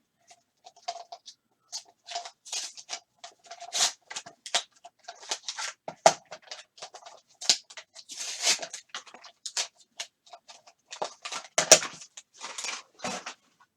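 Trading-card box packaging being handled and opened: irregular rustling, crinkling and scraping of packaging and cards, in quick short strokes with a few louder ones.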